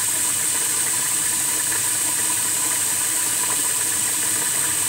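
Steady, even hiss of background noise with a thin high whine over it, and no distinct knocks or clinks.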